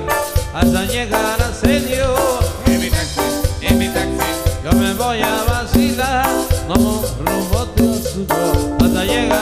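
Live band playing upbeat Latin dance music with a steady beat and a melody over it.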